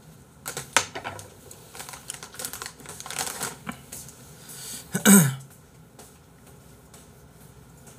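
Paper tissue crinkling and rustling as it is pulled out and handled, with scattered small clicks. About five seconds in, a short loud blow of the nose into the tissue.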